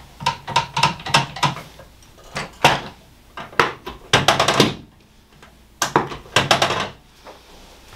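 Chiropractic adjusting table clunking under quick hand thrusts on the lower back. The sharp knocks come in several short clusters, the densest a little past the middle.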